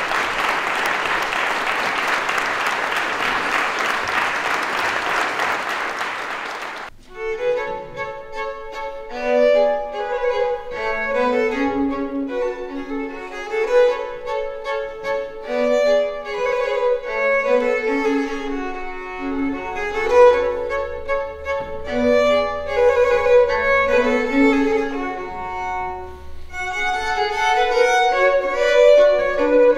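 Audience applause that cuts off about seven seconds in, then two violins playing a Baroque duet.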